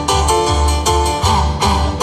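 Electronic keyboard playing a song intro: a pulsing low bass line, about two notes a second, under repeated sustained chords.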